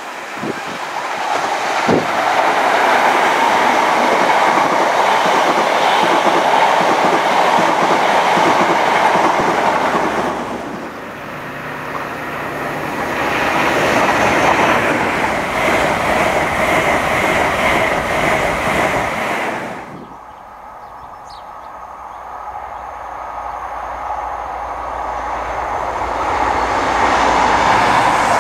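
First Great Western InterCity 125 High Speed Trains passing one after another: diesel power cars and the rush and clickety-clack of coach wheels on the rails, swelling and fading as each train goes by. The sound changes abruptly twice, about ten and twenty seconds in.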